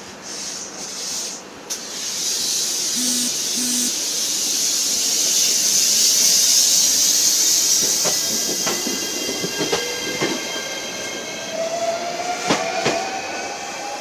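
JR Shikoku 7200 series electric train pulling out: a long hiss of air, then its traction motors whine with a slowly rising tone as it gathers speed. Two short low beeps come about three seconds in, and two sharp wheel clacks near the end.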